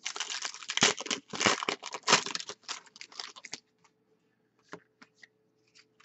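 Foil wrapper of a hockey trading card pack crinkling and tearing for about three and a half seconds, followed by a few light clicks of cards being handled.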